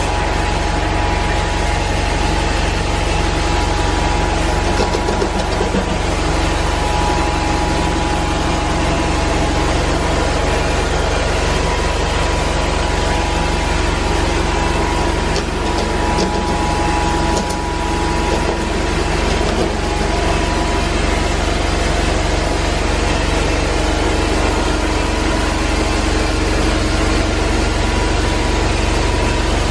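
Rotovac 360i rotary carpet extraction tool running over carpet: a steady, loud drone of the extraction vacuum with the hiss of the spinning head sucking on the pile.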